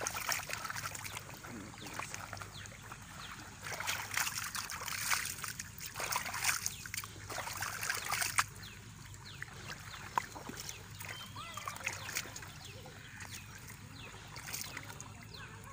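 Hands sloshing and splashing through shallow muddy water inside a push net, with many small wet crackles and splats. It is busier and louder for the first half, then settles into quieter sloshing.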